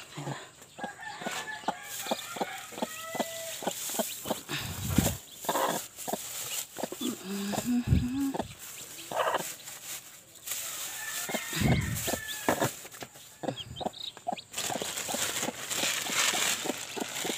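A mother hen clucking and newly hatched chicks peeping in short high calls, among many sharp knocks and rattles of wooden coop slats handled close by.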